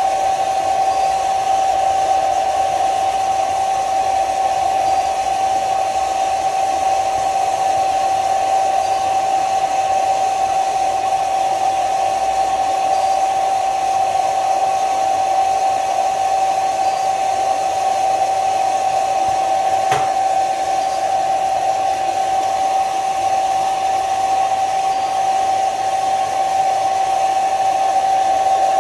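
Hot-air blower running steadily, a constant whine over airy hiss, with a single click about twenty seconds in.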